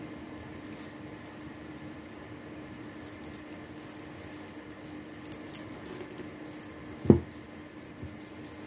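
Small clicks and light rattles of unakite chip beads and jewellery pliers being handled over a steady hum, with a single soft thump about seven seconds in.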